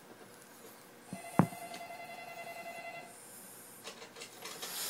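A single sharp click about a second and a half in, over faint steady tones that last a couple of seconds.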